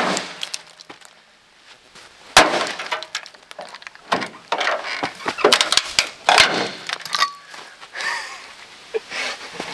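Taillight of a 2000 Ford Ranger pickup being smashed out with a long wooden pole: a sharp crack about two and a half seconds in, then a quick run of knocks and cracking as the light breaks apart, with pieces clinking.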